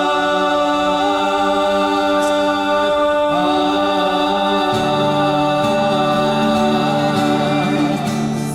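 Choir singing long held chords in a song, the chord changing about three seconds in and a lower held part joining near the middle.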